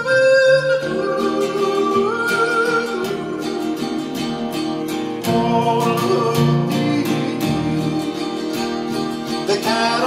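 Cutaway acoustic guitar strummed in a country song, with a wordless sung line of long held notes that step up and down over it.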